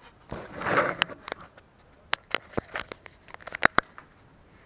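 Handling noise as a small camera is picked up and moved: a brief rustle about half a second in, then a run of sharp, irregular clicks and knocks.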